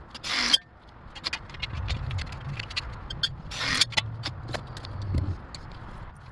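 Hands-on work with tools and metal parts: scattered clicks and clinks, with two short hissing bursts, one near the start and one about halfway through, over a low rumble.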